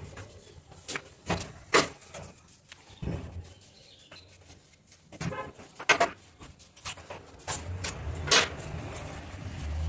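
Irregular knocks, clicks and clatter of objects being handled while a refrigerator is cleaned, with a short rattle about five seconds in.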